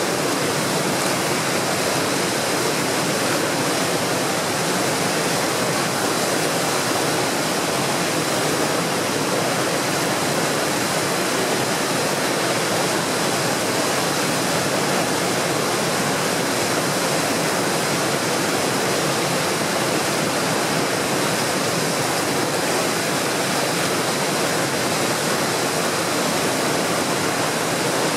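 Steady, unbroken rush of the Skookumchuck Narrows tidal rapids: a very large tide drives the current hard through the narrows, breaking it into a standing wave and whitewater.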